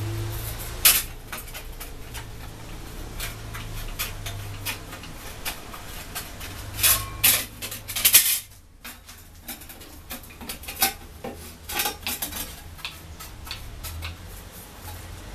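Thin sheet steel being handled and cut with tin snips: scattered sharp metallic clicks and rattles from the snip jaws and the flexing sheet, loudest in a cluster about seven to eight seconds in. A low hum sits underneath at the start and near the end.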